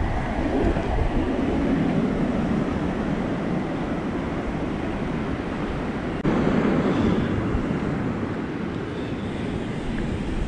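Atlantic surf breaking and washing up a sandy beach, with wind buffeting the microphone in a low, uneven rumble.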